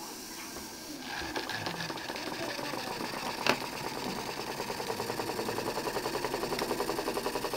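Jensen 20G model steam engine running, its even, rapid beat picking up speed to about six or seven beats a second, with one sharp click about halfway through. The beat is smooth with no bumping, now that new cylinder seals have replaced a loose piece of rubber that had been causing an awful noise.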